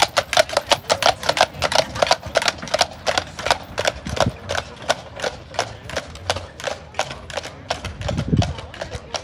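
Hooves of two draft horses clip-clopping on asphalt as they pull a wagon, a quick, even train of hoof strikes that grows fainter as the horses move away.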